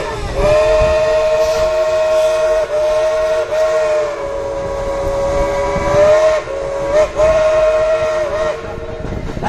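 Dollywood Express steam locomotive's whistle blowing one long, loud blast of several tones sounding together. The blast is broken briefly a few times along the way, about three, six and seven seconds in.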